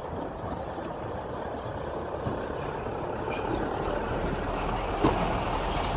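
Garbage trucks driving along a dirt road, their engines growing louder toward the end as they come closer, with a short knock about five seconds in.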